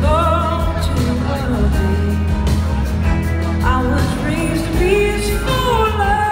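Live blues-rock band playing loudly, with electric guitars, bass and drums, while a woman sings lead in long wavering phrases, one at the start and another from just before the middle onward. The sound is heavy in the bass.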